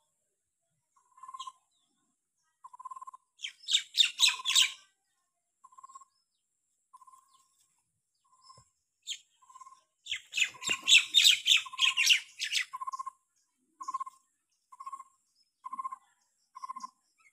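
Birds calling: a short single note repeated about once a second, with two loud bursts of rapid high chirping, one about four seconds in and a longer one from about ten to thirteen seconds.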